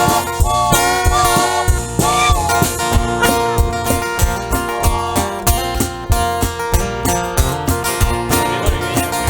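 Live band playing an instrumental break of a country-gospel song: plucked strings over a steady beat, with a wavering lead line in the first two seconds.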